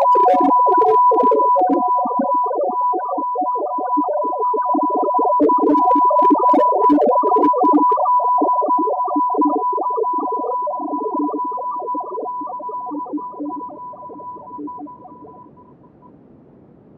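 Electronic music played from a laptop: a steady high synthesizer tone held over a busy, shifting pattern of lower notes, with crackling noise bursts near the start and again around the middle. The music fades out over the last few seconds.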